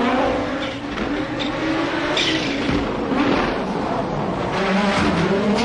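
Audi quattro rally car's engine at full throttle on a gravel stage, its pitch rising and falling as it revs and changes gear.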